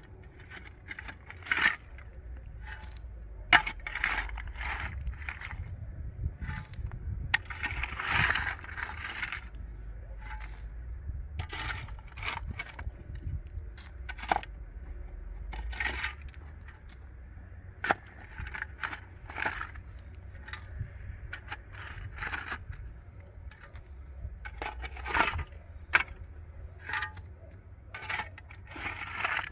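Scattered knocks, scrapes and clinks of hard objects being handled, coming irregularly every second or so, over a steady low hum.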